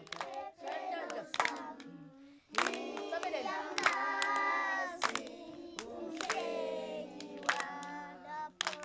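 A group of young children singing together and clapping their hands in time, a clap roughly every second.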